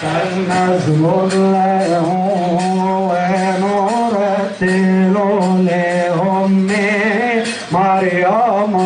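Male church chanting of a hymn. It holds long notes and breaks into wavy, ornamented turns, over a recurring beat of light percussion strikes.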